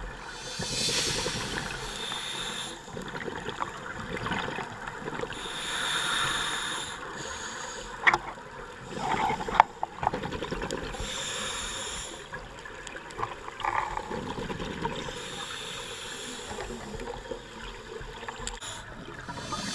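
Scuba diver's breathing through a regulator, heard underwater through a GoPro camera's housing: a burst of exhaled bubbles about every five seconds over a steady water hiss, with a few sharp clicks a little past the middle.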